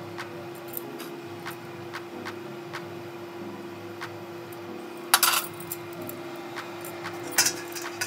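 Brass spoon clinking against brass dishware in two short bursts, about five seconds in and again about seven and a half seconds in.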